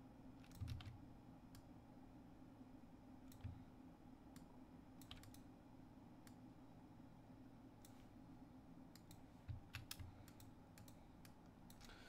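Faint, scattered clicks from working a computer, a few coming close together near the end, over a faint low hum; otherwise near silence.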